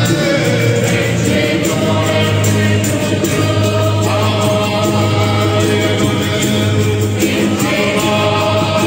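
Singing with long held notes over instrumental accompaniment with a steady beat.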